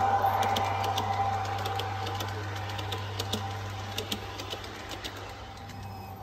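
Garden-railway model train running past and away: the locomotive's electric motor whine fades as the coaches roll by, their wheels clicking over the rail joints in quick irregular ticks.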